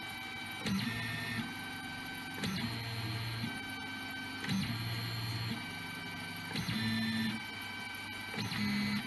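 Stepper motors of a delta 3D printer whining through a run of auto-leveling moves, the effector travelling between probe points on the bed. The pitch jumps to a new set of tones about every two seconds, each move starting with a short louder stretch.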